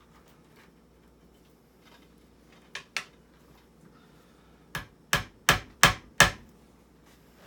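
Hammer blows on a wooden bench-work frame: two lighter taps, then five harder strikes about three a second, as with nails being driven.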